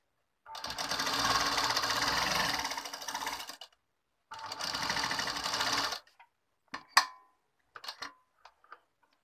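Domestic sewing machine stitching gold lace trim onto fabric in two runs, the first about three seconds long and the second under two, with a short pause between. A few short clicks and taps follow.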